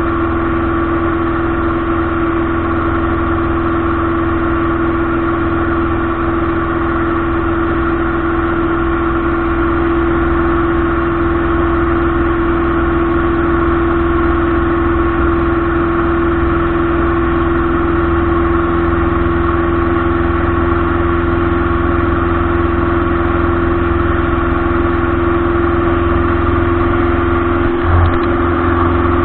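Light aircraft's piston engine and propeller running steadily at constant power with an even drone. There is a brief knock near the end.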